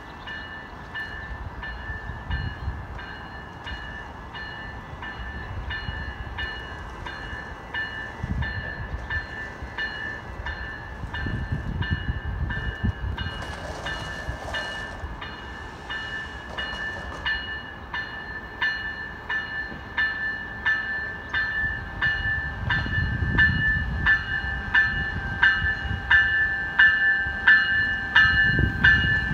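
A bell rings in an even, steady rhythm as a Coaster commuter train pulls into the station. The train's low rumble and the bell grow louder toward the end as the train draws near.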